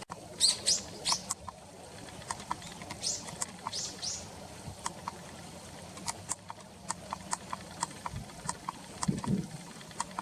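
Small tits calling: a few high, thin arched notes in the first few seconds, followed by a scattered run of short sharp ticks.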